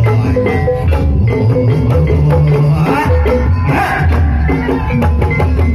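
Banyumasan ebeg (kuda lumping) gamelan music: repeated pitched mallet notes over deep drum and gong strokes in a steady rhythm.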